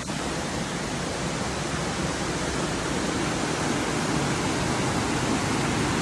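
Waterfall cascading over rocks into a pool: a steady, even rush of water.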